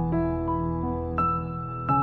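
Soft, slow instrumental background music, with a few keyboard notes struck over held chords.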